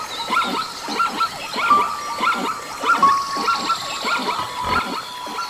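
A chorus of short, rapid animal calls, three or four a second, over steady held tones.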